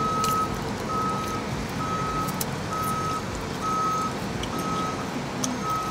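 A vehicle's electronic warning beeper sounding steadily: one high beep about once a second, each about half a second long, with a few faint clicks over it.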